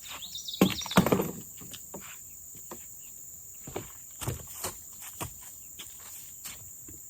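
Steady high-pitched trilling of crickets, with a burst of handling clatter and rustling about a second in and a few scattered clicks and knocks after it.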